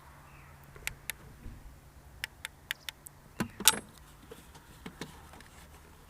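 A string of light, sharp clicks and taps from small hard objects being handled, with one louder clack a little past halfway.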